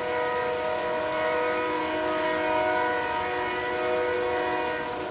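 Locomotive air horn of a Maryland Midland train sounding one long, steady blast of several notes at once, fading out about five seconds in.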